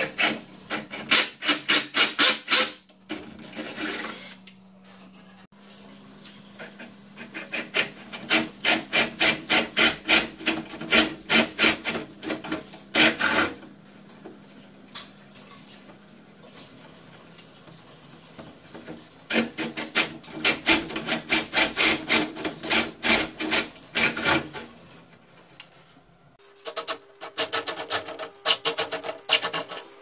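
Cordless DeWalt XR combi drill with a flat wood bit boring into the edge of a wooden door, a rapid rasping chatter of the bit cutting wood. It comes in four bursts of a few seconds each, with short pauses between.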